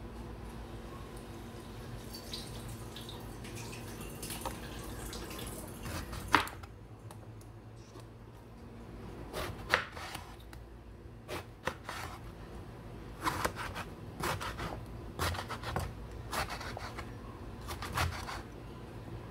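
Chef's knife cutting an eggplant into cubes on a wooden cutting board: irregular sharp knocks of the blade hitting the board, some in quick clusters, starting about a third of the way in. A steady low hum runs underneath.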